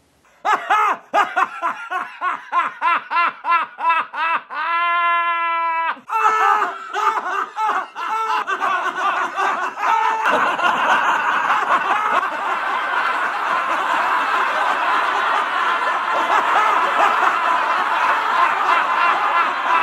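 A man's hearty belly laughter in rapid, rhythmic bursts, broken about five seconds in by a long, high-pitched held shriek. From about ten seconds in several laughs overlap into a dense, continuous wall of laughter.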